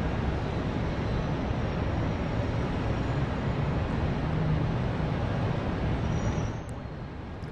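Steady low rumble of a motor vehicle, like traffic going past, that falls away about six and a half seconds in, leaving a quieter hiss with a faint click or two.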